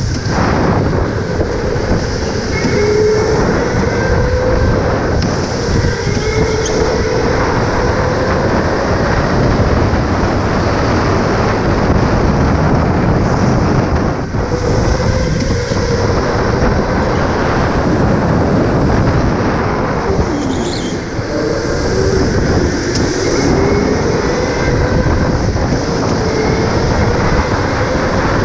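Electric go-kart running at racing speed: its motor whine rises and falls again and again as the kart speeds up and slows, over a dense rumble and rattle of the kart on the track.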